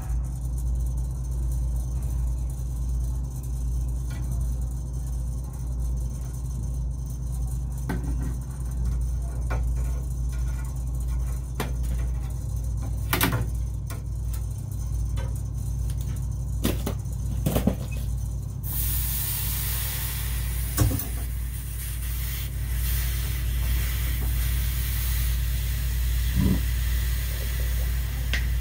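Soldering torch hissing at the fittings of a walk-in freezer's thermostatic expansion valve. The hiss starts suddenly about two-thirds of the way through, over a steady low hum, after a few sharp clicks and taps of tools on the copper work.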